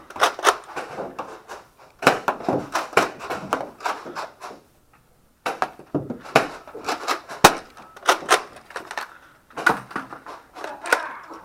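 Nerf Rival blasters being primed and fired, with foam balls striking walls and furniture: an irregular clatter of sharp clacks and knocks, several a second, in three bursts with short lulls between.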